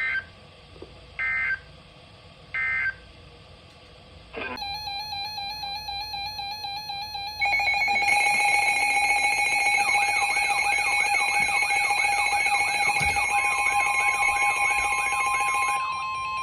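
Three short data bursts of an Emergency Alert System SAME header, about a second apart. Then weather alert receivers sound their alarms: layered beeping tones that get much louder about seven seconds in, a warbling tone, and near the end a single steady attention tone, the signal that a new warning is about to be read.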